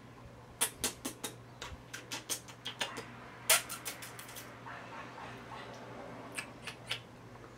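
Wet lip smacks and kisses of a man mouthing a baby's fingers and kissing her: a quick run of soft clicking smacks, the loudest about three and a half seconds in, then three more near the end.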